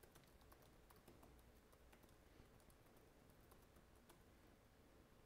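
Faint typing on a computer keyboard: a quick, irregular run of soft key clicks.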